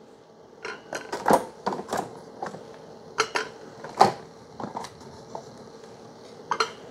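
Plastic clicks and knocks as Keurig brewer lids are lifted open and used coffee pods are pulled out of the pod holders, a dozen or so irregular snaps with the sharpest about three and four seconds in. A faint steady hum runs underneath.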